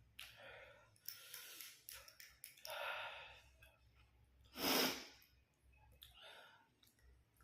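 A few breathy puffs and soft clicks, the loudest a short, strong breath out about halfway through.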